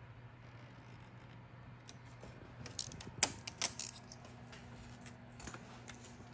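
Sharp clicks and light scrapes from handling a small snap-off utility knife while trimming vinyl wrap: a quick run of clicks about three seconds in and a couple more near the end, over a steady low hum.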